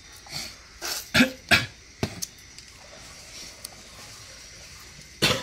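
Several short knocks and clatters of plastic and metal as small two-stroke grass-trimmer engine heads are handled and shifted on the floor, the loudest a little over a second in and again near the end.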